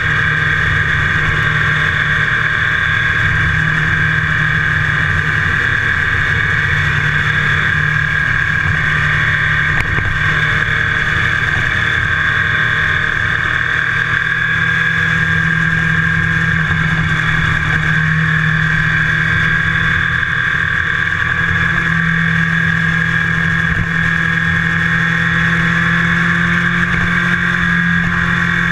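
Motorcycle engine running at a steady cruising speed, its pitch holding nearly constant, mixed with wind rush and road noise from riding.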